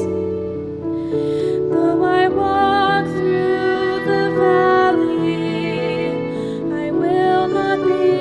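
Slow, gentle sacred song: piano chords under a bowed violin line with vibrato, accompanying a young female singer.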